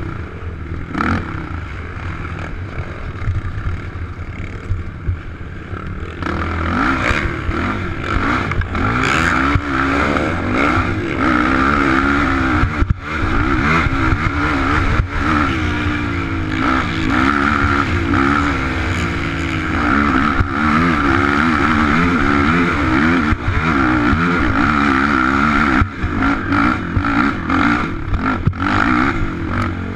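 Single-cylinder four-stroke sport ATV engine heard from on board, run hard over rough dirt: quieter at first, then from about six seconds in louder, the revs rising and falling constantly. A couple of brief drops in the engine note, with knocks and rattles from the machine over bumps.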